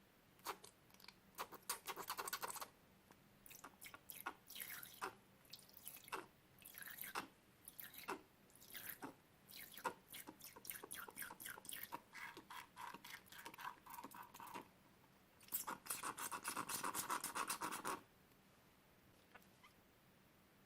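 Slime being squished and pressed by hand, giving bursts of rapid wet crackles and small pops, with a longer dense run of crackling near the end.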